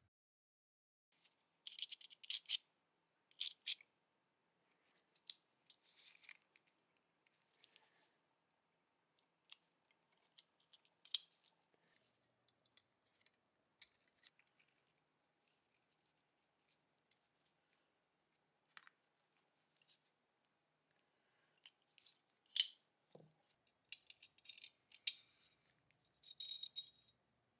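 Small steel parts of a disassembled Colt vest pocket pistol clicking and clinking as gloved hands handle them and set them down: scattered light metallic ticks with quiet gaps, a sharper clink about three-quarters of the way through.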